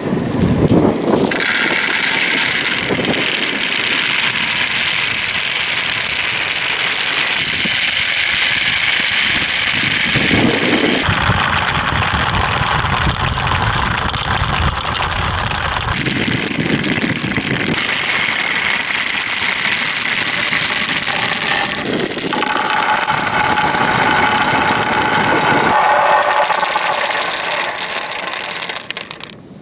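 Dozens of small plastic balls rolling and clattering down plastic marble-run chutes and rain-gutter tracks: a dense, continuous rattling rumble whose character changes abruptly several times.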